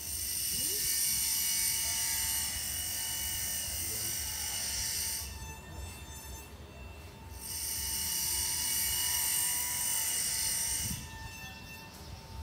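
A high-pitched hissing whine from a small machine runs for about five seconds, stops for about two, then runs again for about three and a half seconds.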